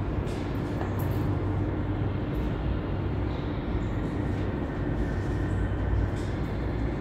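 Steady low mechanical hum and rumble with a few faint ticks.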